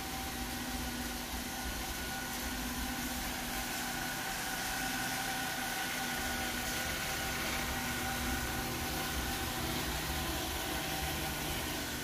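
iRobot Roomba s9 robot vacuum running on its low power setting, cleaning a hardwood floor: a steady whir of its suction motor and brushes with a faint high whine.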